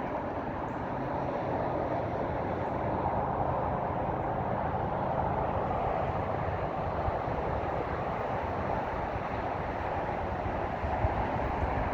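CSX freight train's diesel locomotives approaching, a steady rumbling drone with no horn sounding.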